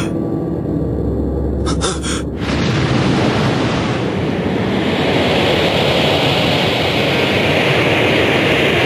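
Anime sound effect: a deep rumble with a few short crackles over the first two seconds, then a loud rushing noise that swells and holds.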